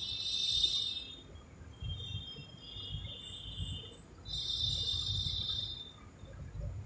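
High-pitched chirping in several bursts, each lasting up to about a second, over a faint low rumble.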